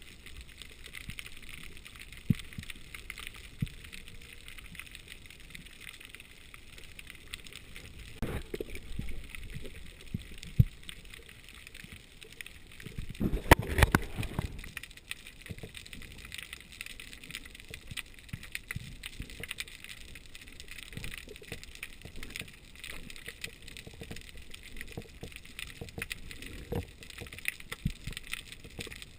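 Underwater sound heard through a GoPro's waterproof housing: a steady faint hiss with scattered crackling and small clicks and knocks. About halfway through comes a louder, muffled rush lasting about a second.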